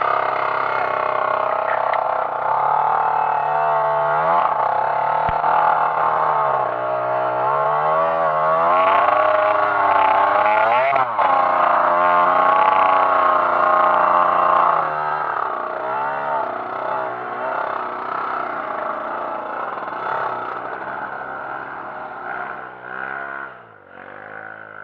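Trail dirt bike engine revving up and down again and again under load, its pitch rising and falling every second or two, growing quieter near the end.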